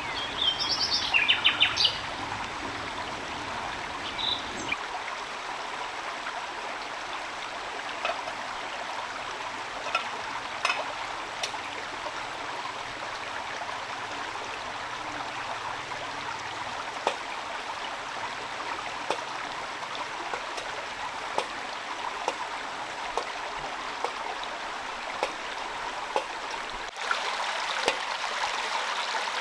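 Rain falling steadily, with scattered single drops tapping sharply. A bird chirps in a quick series about a second in. The rain gets louder near the end.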